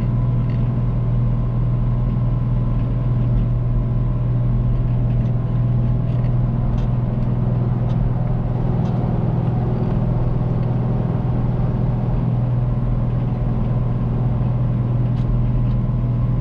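Caterpillar 3208 V8 diesel of a White 4-225 four-wheel-drive tractor running steadily under load while pulling a disc harrow through corn stubble, heard from inside the cab. A deep, even drone is carried throughout, with a thin steady whine above it.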